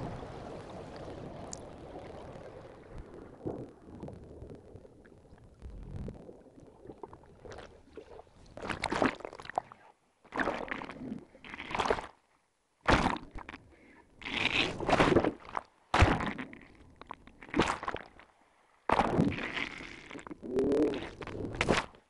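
Underwater sound from a suction-cup DTAG on a feeding humpback whale: a low rushing water noise fades over the first few seconds, then from about eight seconds in come about nine short, loud bubble bursts, each under a second with brief gaps, as the whales blow bubble nets.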